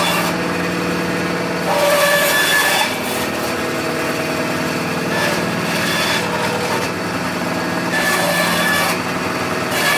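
Delta ShopMaster band saw running with a steady motor hum, its blade cutting into a coconut's husk and shell. The cutting is louder for about a second, about two seconds in and again near the end.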